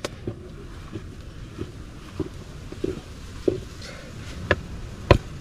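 Wooden stirring stick working stiff maize-meal porridge in a metal cooking pot: a soft thud roughly every half second as the dough is pressed and turned, then a few sharper, louder knocks near the end.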